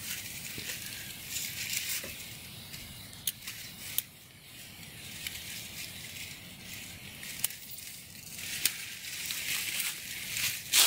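Lever-operated backpack sprayer's wand nozzle hissing in on-and-off spurts as it sprays a paint-and-fungicide mix, with a few sharp clicks along the way.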